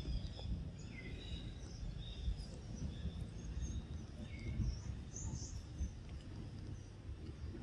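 Outdoor forest ambience: a steady low rumble with scattered faint, short bird chirps above it.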